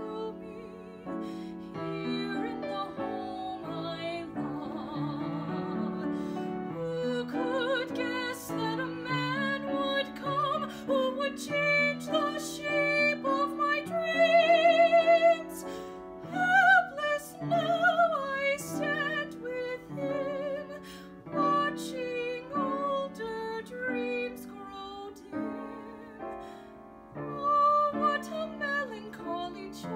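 A woman singing with vibrato, accompanied on an upright piano. About halfway through she holds one long, loud note.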